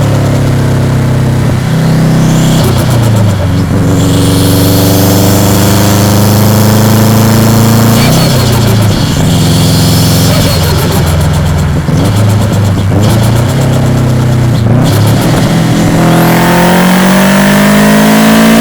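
Subaru Impreza WRX's EJ207 turbocharged flat-four under hard acceleration. The engine note climbs and then drops back several times as it shifts through the gears, with turbo flutter chattering around the shifts.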